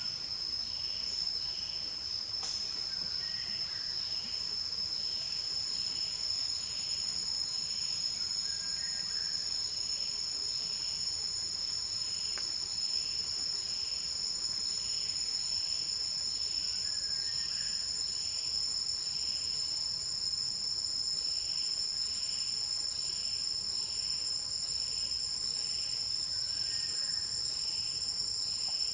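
Steady high-pitched drone of forest insects, two unbroken tones, with a softer pulsing insect call repeating about once or twice a second underneath.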